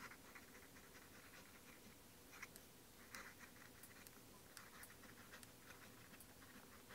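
A Sheaffer Tuckaway fountain pen's gold nib scratching faintly across paper in short, stop-start strokes as it writes cursive letters.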